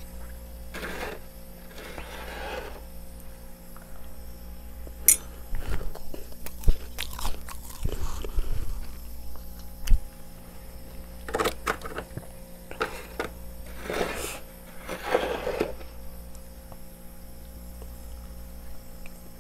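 A person chewing and crunching mouthfuls of freezer frost, in irregular bouts of gritty crunching with pauses between.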